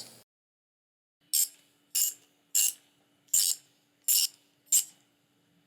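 Ratchet wrench clicking in six short bursts, about one every two-thirds of a second, as the cartridge oil filter cap is tightened clockwise onto its housing.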